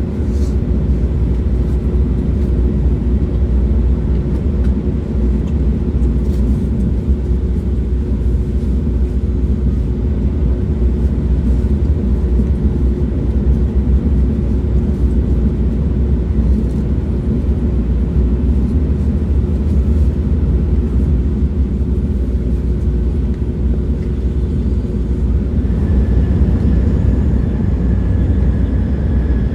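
Train running, a steady low rumble with a constant hum; near the end the hum fades and a faint higher whine comes in, falling slightly in pitch.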